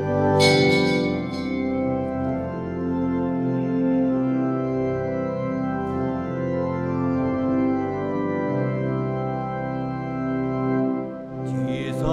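Church organ playing held chords: the introduction to the entrance hymn as the congregation stands.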